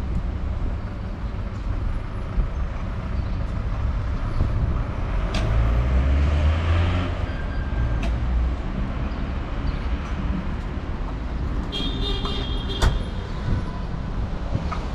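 City street traffic: engines running and vehicles passing, with one passing louder about six seconds in. A short, high-pitched horn toot comes about twelve seconds in.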